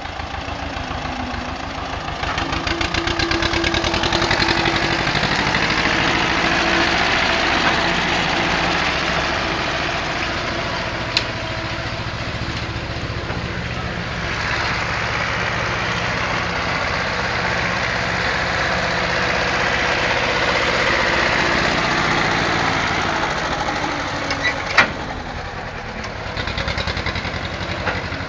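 Small farm tractor's diesel engine running steadily while towing a tipping trailer, growing somewhat louder for several seconds in the middle. Two sharp knocks stand out, the louder one near the end.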